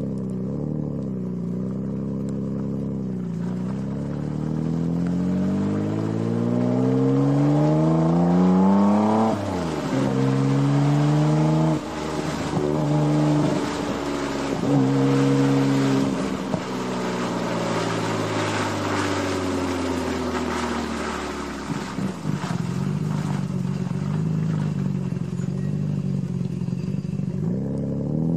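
Nissan Skyline GT-R R33's twin-turbo RB26DETT straight-six through an HKS Hi-Power exhaust, heard from outside the moving car. It revs up steadily for about five seconds and drops sharply, then rises and falls again with crackling from the exhaust as it slows, and runs steadily and lower near the end.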